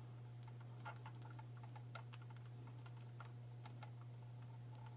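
Faint, irregular small clicks and ticks of a lock pick working the pin stacks inside a Burg Wachter padlock, probing the pins one by one, over a steady low hum.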